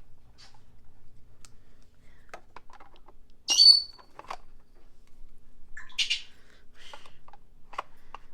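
Small plastic clicks and taps as toy fridge parts are handled and fitted together, with a short, loud, high-pitched squawk about three and a half seconds in and a shorter raspy squawk around six seconds in.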